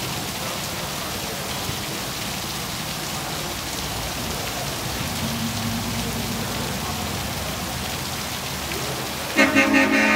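Heavy rain pouring steadily, with a lifted pickup truck's engine running low beneath it. About nine seconds in, a loud pitched blare like a horn cuts in suddenly.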